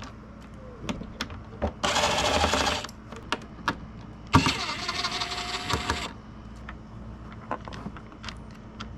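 Cordless power driver or electric ratchet spinning bolts out of the dirt bike's side-panel mounts in two short runs, the second longer and with a steady whine. Light clicks of the tool and bolts being handled come in between.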